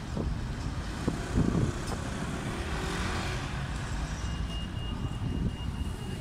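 Road traffic and engine rumble, steady throughout, with a thin, steady high-pitched tone that comes in about four seconds in.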